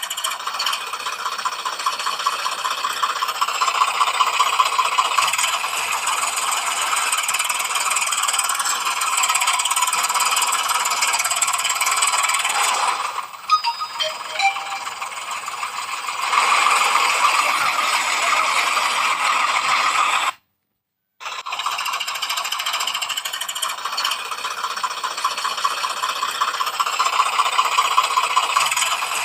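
A small battery-powered toy's motor and plastic gears running with a fast, steady rattle. It eases off for a few seconds about halfway through, then cuts out briefly and starts again.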